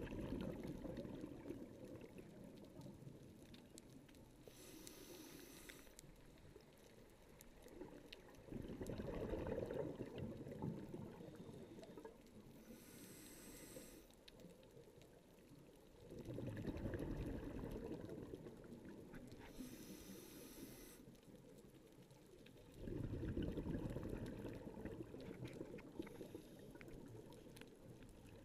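Scuba diver breathing through a regulator underwater. Four bubbling rushes of exhaled air come about every seven to eight seconds, and between them are three short hisses of air drawn through the regulator.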